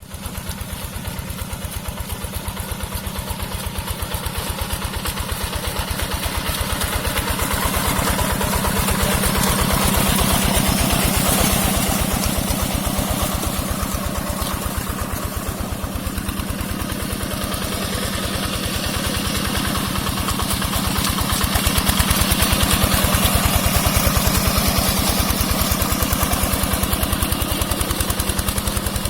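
Yanmar TF85 single-cylinder diesel engine on a two-wheel hand tractor running steadily, a fast even chugging that swells a little louder twice.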